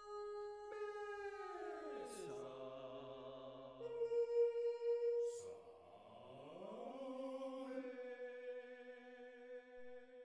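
Eight-part mixed choir singing unaccompanied: held chords, with the voices sliding down in pitch about a second and a half in, then sliding up into a new held chord about six seconds in that dies away near the end.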